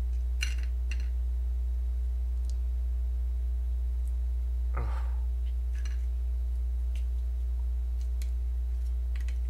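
Faint scattered clicks and crackles of an egg's shell being handled and peeled by hand, with one brief louder falling sound near the middle. Under it all runs a steady low electrical hum.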